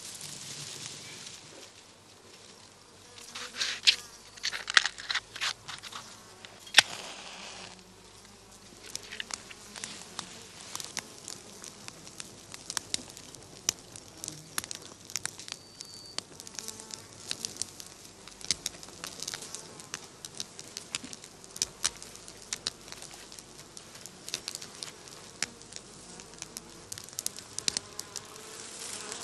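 Insects buzzing around a nest in the grass, with scattered crackling rustles of dry straw and grass; the rustling is loudest in a cluster of snaps between about four and seven seconds in.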